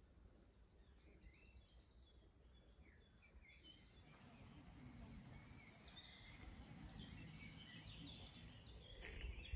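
Faint birdsong: scattered short chirps and a quick trill, growing a little busier in the second half, over a faint low rumble.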